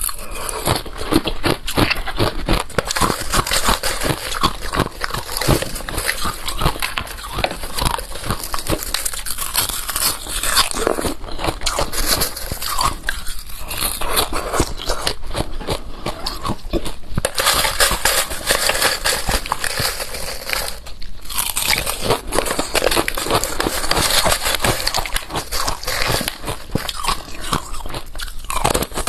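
Close-miked crunching and chewing of balloon ice (ice frozen inside a balloon): a dense, continuous run of sharp cracks and crunches, with a short pause about 21 seconds in.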